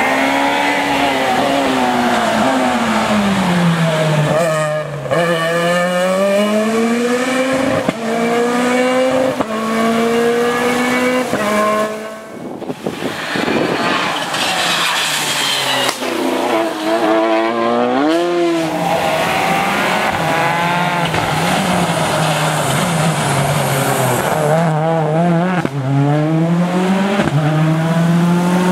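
Rally cars, among them a Peugeot 207 and a Citroën DS3, driven flat out one after another, engines revving hard. Each climbs in pitch and drops sharply at every gear change, with lifts and downshifts for the bends.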